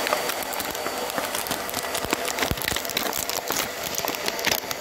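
Thin plastic packaging crinkling and crackling as the clear film lid of a Lunchables tray is handled and pulled back, with many irregular small clicks and taps against the plastic tray.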